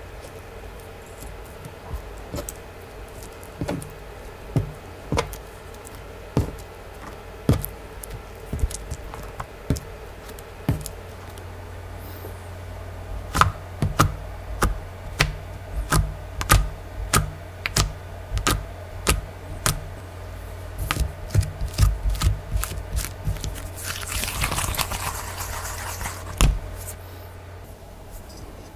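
Fingers pressing, folding and poking slime, giving sharp sticky pops and clicks. At first the pops come about once a second, then one to two a second, with a short crackling stretch near the end.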